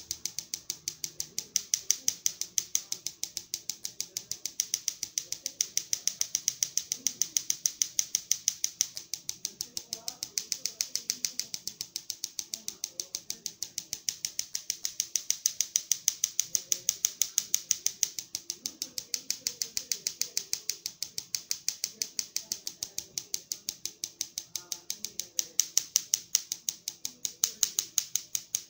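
Spark gap of a homemade Tesla coil, built from terminal blocks and charged by an electric mosquito racket, firing in a rapid, steady train of sharp snapping clicks, several a second.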